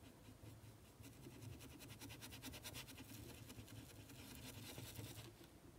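Faint, rapid scratching of a paintbrush rubbed in small circles on fabric, working paint into the cloth; it stops shortly before the end, over a faint low hum.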